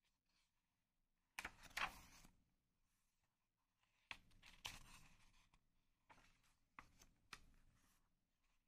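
Paper pages of a picture book being turned and handled: a papery rustle about a second and a half in, another around four seconds in, then a few light taps of the page settling.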